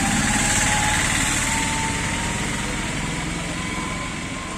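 A small engine running amid street noise, with a faint whine that rises slowly in pitch.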